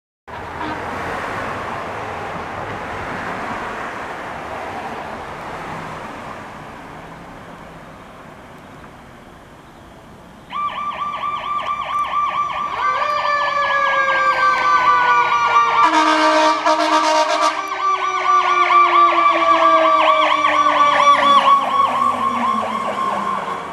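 Steady road noise that fades over the first ten seconds, then a fire engine's Federal Signal PowerCall electronic siren starts up loud with a fast warble. About three seconds later a mechanical siren spins up and slowly winds down in pitch under it, and an air horn blasts for about a second and a half around sixteen seconds in.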